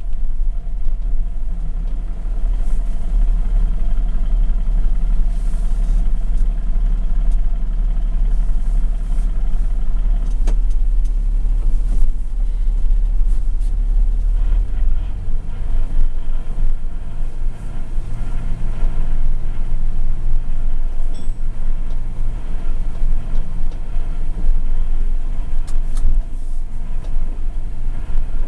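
Mercedes-Benz Unimog engine running steadily as the truck drives over a rough track, heard from inside the cab, with a few sharp knocks and rattles from the cab. The engine note climbs a little past the middle, then settles again.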